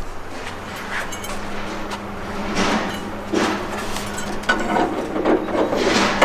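Metal sway bar parts being handled and fitted: several irregular clanks and knocks.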